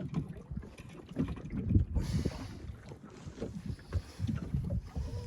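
Small waves slapping and knocking against the hull of a small aluminium boat, with a brief hiss about two seconds in.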